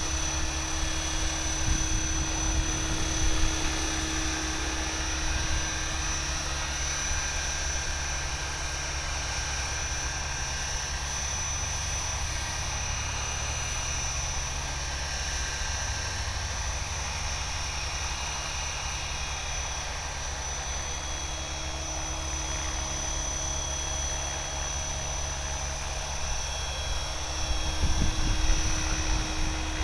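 Align T-Rex 550E electric RC helicopter hovering and manoeuvring: a steady high whine from its electric motor and drive over the whir of the rotor blades, with little change in speed.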